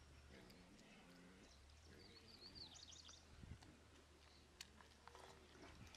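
Near silence: faint outdoor ambience with a steady low hum and a brief bird chirp about two and a half seconds in.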